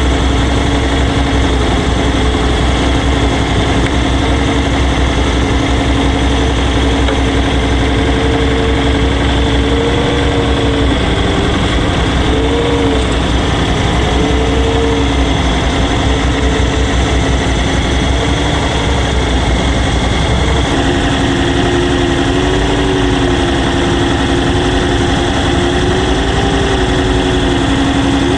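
Engine of a small seine boat running steadily, with a hum that wavers in pitch now and then and changes in tone about three-quarters of the way through.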